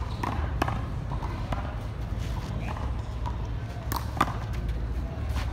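A small rubber handball being bounced and struck by hand against a concrete wall: a few sharp smacks, the loudest two close together about four seconds in, over a steady low rumble.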